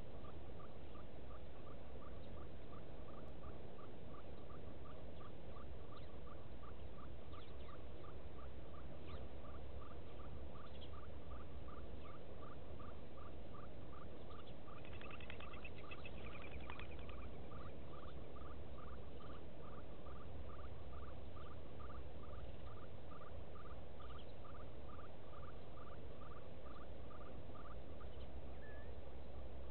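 A small animal in the bush calls one short high note over and over at an even pace, about twice a second, stopping near the end. A few brief bird chirps come around the middle, over a low steady rumble.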